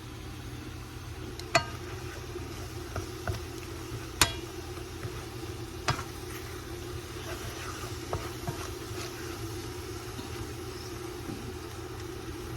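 Kitchen utensils clinking against dishes and cookware: three sharp clinks about 1.5, 4 and 6 seconds in, with lighter taps between, over a steady low hum.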